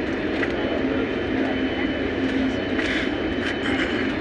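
Steady noise of an airliner's engines and airflow, even and unbroken, with a low steady hum running through it.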